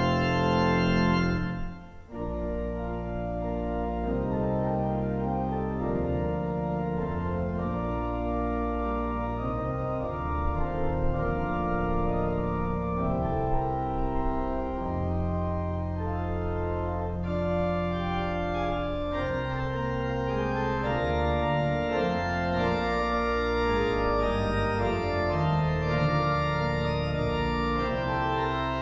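Organ playing slow, sustained chords that change every second or so, with a brief break about two seconds in before the music resumes.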